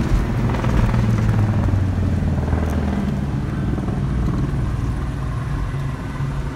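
Engine and road noise inside a moving police SUV's cabin: a steady low drone whose pitch shifts a little with the engine's speed.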